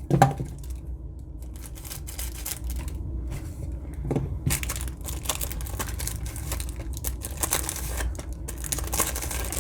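Trading-card packaging being torn and crinkled open by hand: irregular scratchy rustling with a few sharper clicks, busiest about four seconds in and again near the end.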